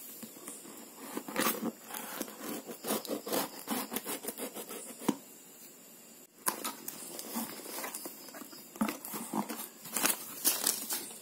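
A blade scraping and slitting through packing tape on a cardboard box, a string of scratchy strokes and clicks. After a short pause there is a sudden sound as the box is opened, then the cardboard flaps are handled and paper packing rustles and crinkles.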